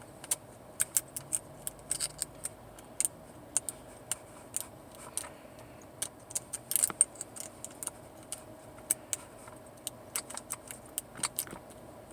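A metal lock pick raking and setting the pin tumblers of a Master Lock level 10 padlock under a tension wrench: irregular light metallic clicks and ticks, a few a second, with a short cluster about seven seconds in.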